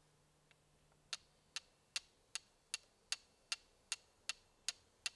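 Flint struck again and again against a steel striker to throw sparks: sharp, short clicks about two and a half times a second, starting about a second in.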